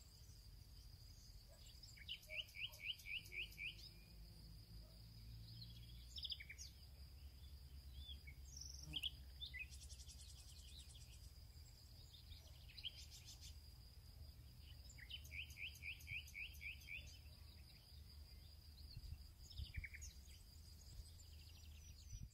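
Faint birdsong: quick runs of six or so chirps, repeated several times, with scattered single calls between. Under the song are a low steady rumble and a thin, steady high whine.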